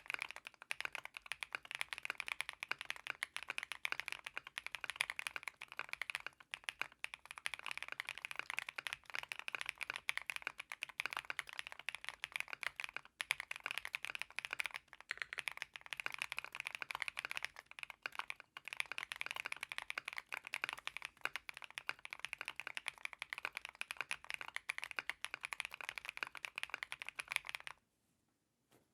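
Fast, continuous typing on a Mr. Suit custom mechanical keyboard with Night Sakura (Durock POM) switches, a polycarbonate plate and PBT keycaps: a dense stream of keystrokes with a few brief pauses, stopping shortly before the end.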